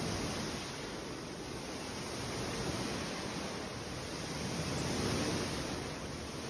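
Swimming-pool water sloshing and rushing in waves, set in motion by earthquake shaking, as a steady rushing noise that swells a little around the middle.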